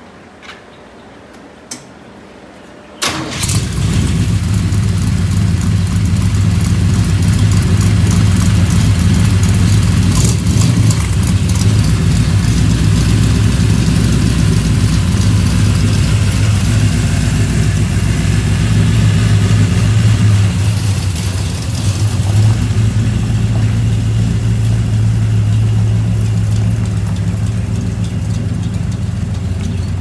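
A high-horsepower vehicle engine starts suddenly about three seconds in, then runs loudly at a steady idle, easing off slightly near the end.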